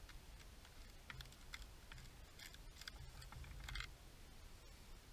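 Knife slicing through a reflector-oven pizza's crisp crust on a wooden canoe paddle: faint crackling clicks in three short runs, the last, about three and a half seconds in, the loudest.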